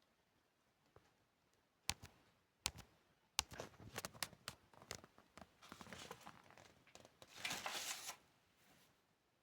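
Handling noises: a few sharp clicks, then a quick run of crackling clicks and a rustle of about a second near the end, like packaging or foil being crinkled.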